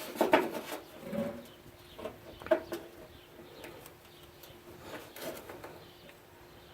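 Small metal clicks and taps from working a C clip back onto a Toyota Tundra tailgate latch mechanism, a handful of sharp strokes with the loudest about two and a half seconds in.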